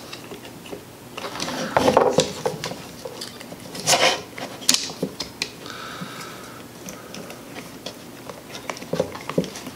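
Hard plastic parts of a Chicago angle grinder's housing and switch clicking, knocking and rattling as they are pried and handled by hand, in irregular bursts with the loudest about two and four seconds in. A brief faint squeak partway through.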